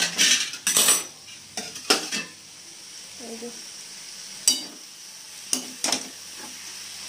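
Vegetables frying and sizzling in oil in a kadai while a spatula stirs them, making irregular scrapes and clinks against the pan.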